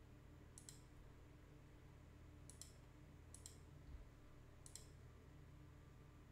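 Four faint computer mouse clicks, each a quick double tick of the button pressing and releasing, spread over a few seconds of near-silent room tone.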